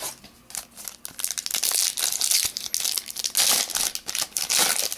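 Foil wrapper of an Upper Deck Victory hockey card pack being torn open and crinkled by hand, a dense run of irregular crackles that grows busier in the second half.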